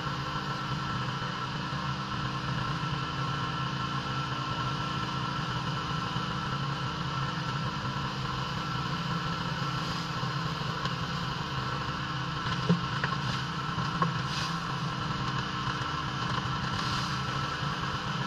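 Pressure washer's engine running steadily. Two short knocks about a second apart come about two-thirds of the way through.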